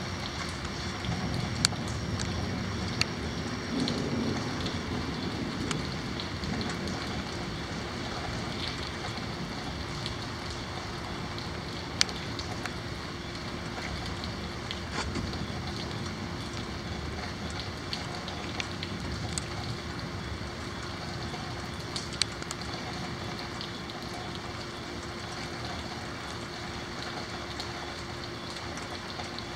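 Steady rain falling during a thunderstorm, with a few sharp ticks of drops striking close by and a steady low hum underneath.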